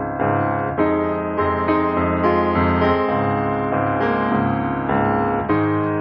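Background piano music, notes and chords struck in a steady, unhurried rhythm.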